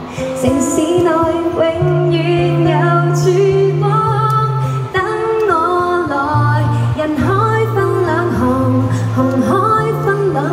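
Woman singing a Cantopop song live into a microphone, accompanied by acoustic guitar, over low bass notes held a second or more at a time.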